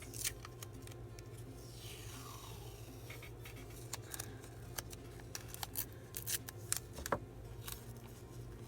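Scissors snipping through paper in a run of short, quick cuts, after a brief sliding rustle of paper.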